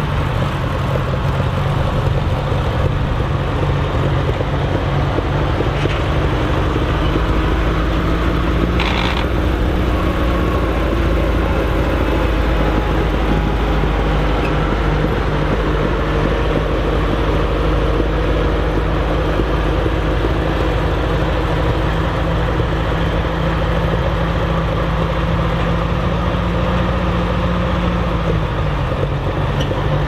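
Massey Ferguson 35 tractor engine running steadily as the tractor drives across the field, with a brief sharp sound about nine seconds in. Near the end the engine note drops a little.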